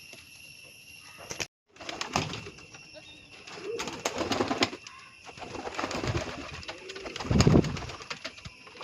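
Fancy pigeons cooing: several low, drawn-out coos, the loudest near the end, with scattered small clicks and rustles.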